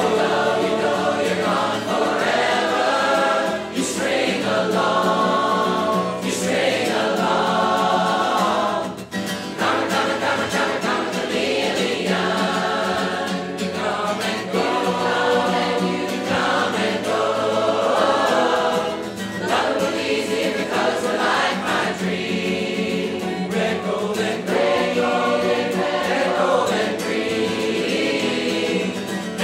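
A large mixed crowd of amateur singers singing together as a choir, in sung phrases separated by short breaks.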